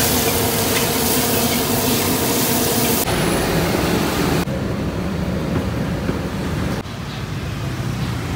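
Steady hissing roar of a flaming wok over a gas burner, with a steady hum under it, cutting off abruptly about three seconds in. Duller steady background noise follows, changing abruptly twice more.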